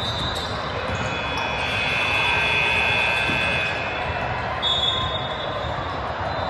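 Basketball game sounds on a hardwood court: a steady background of gym noise with high squeaks of sneakers on the floor. The longest, overlapping squeal lasts about two seconds near the middle, with shorter squeaks at the start and about five seconds in.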